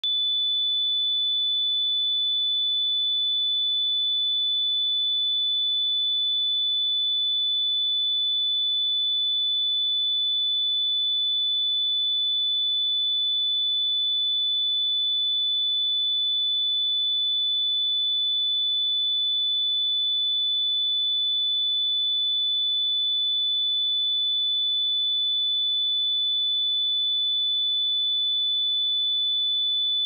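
A steady 3487 Hz sine-wave test tone, one pure high-pitched pitch held unchanged at constant loudness.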